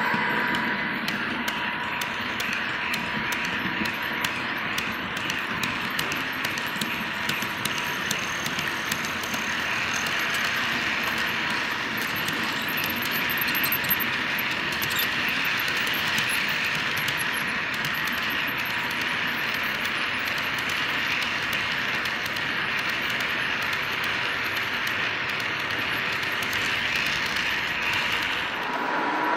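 Wheels of a long H0 scale model freight train rolling over the layout's track: a steady rolling clatter with faint clicks. It stops sharply just before the end as the last wagon clears.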